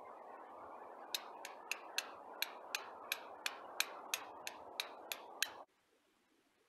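Flint striking a steel fire striker over tinder: a run of about fourteen sharp clicks, roughly three a second, made while throwing sparks to light a fire. A steady low hiss runs underneath and cuts off suddenly just before the end.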